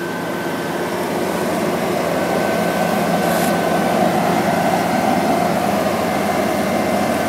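Ammann AV85-2 tandem asphalt roller's diesel engine running steadily as the machine rolls past, with a faint steady high whine, growing a little louder over the first few seconds as it approaches.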